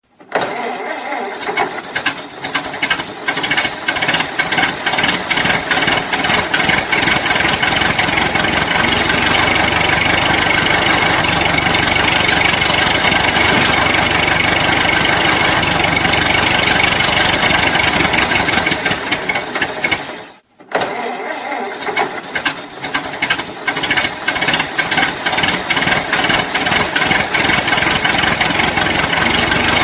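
Old car engine being started: the starter cranks and the engine sputters unevenly, then catches and runs steadily. About twenty seconds in it cuts out for a moment, then cranks and sputters again and settles back into running.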